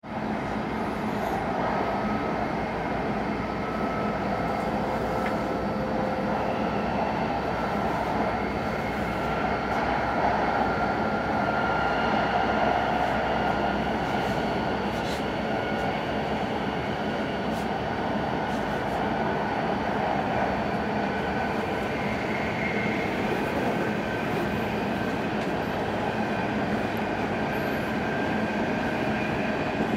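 Train running at speed, heard from inside the carriage: a steady rumble and rushing noise with faint whining tones above it.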